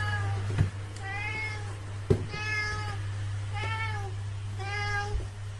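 Domestic cat meowing four times, about once a second, each meow rising and falling in pitch. Two soft thumps come in among the meows.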